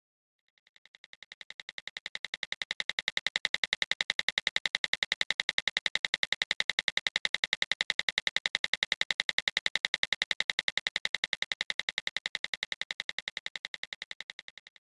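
Rapid, even ticking, many clicks a second, fading in over the first few seconds, holding steady, then stopping suddenly near the end.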